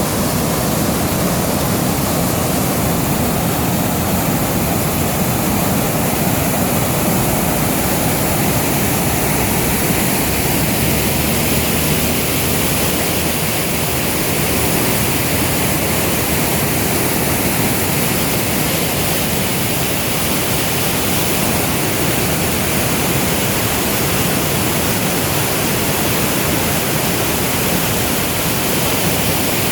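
Steady loud rush of a river's water pouring over rapids or a fall.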